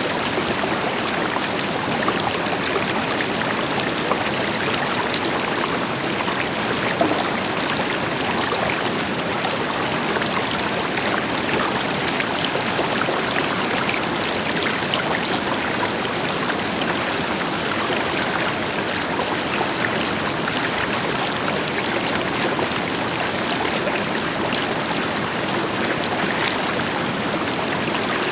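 River water flowing steadily over stones, a continuous rushing with small splashes and gurgles throughout, over a deeper hiss from a waterfall further off.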